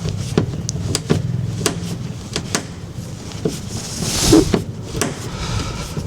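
Scattered clicks and light taps of a hand screwdriver working on the Phillips screws that hold a motorhome cab-door speaker, over a steady low hum. A louder rustling scrape comes about four seconds in.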